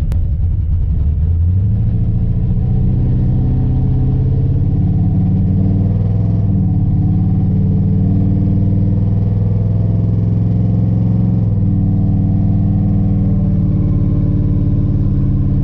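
A Chevrolet 5.3 V8 engine in an S10 pickup running under way. Its note rises about a second and a half in and then holds steady, shifting briefly twice. The truck is on a test run for a misfire after new spark plugs.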